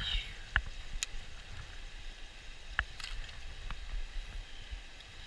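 Shallow mountain stream running over a gravel riffle, a steady rush of water, with a few sharp clicks and taps scattered through it.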